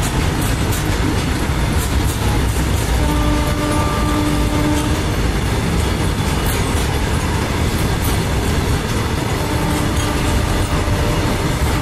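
Covered freight wagons rolling past at close range: a steady rumble of steel wheels on rail with rapid clicks from the wheels and rail joints. A steady pitched tone sounds briefly twice, about three seconds in and again near the end.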